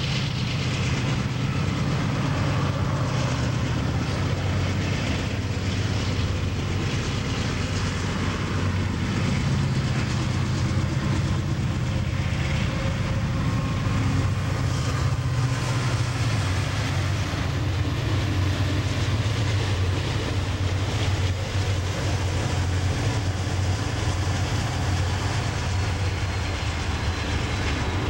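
Norfolk Southern diesel freight locomotives pulling a container train past, a steady low engine drone over the rumble and clicking of wheels on the rails.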